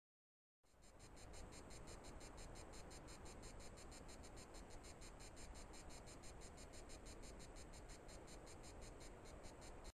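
Faint background hiss with a fast, even, high-pitched pulsing over it. It starts about half a second in, after a moment of dead silence.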